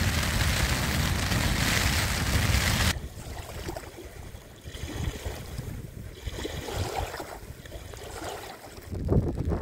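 A steady, loud rush of wind and rain at the tent for about three seconds. Then it switches to quieter lapping water: small waves of the overflowing loch washing and gurgling against a grassy bank. Gusts of wind rumble on the microphone near the end.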